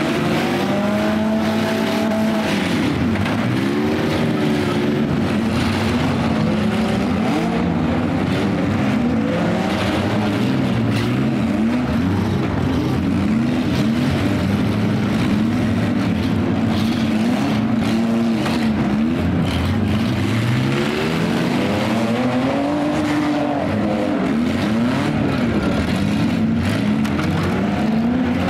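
Several demolition derby cars' engines revving hard and dropping back, many rising and falling pitches overlapping in a continuous loud din, with scattered bangs of the cars colliding.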